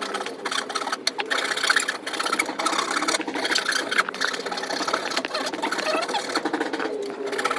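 A small motorised tool running with a rapid, rhythmic clatter.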